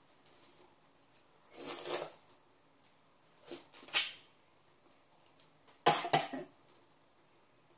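Loud, wet bites and slurps into a whole ripe pineapple, in three bursts about two seconds apart.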